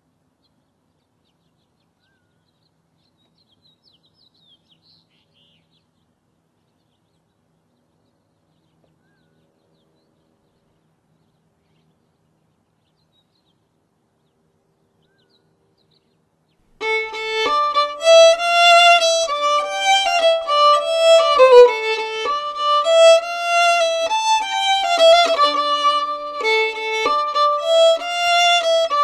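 Near silence with a faint bird chirp a few seconds in, then fiddle music begins abruptly about two-thirds of the way through: a traditional fiddle tune played on the violin.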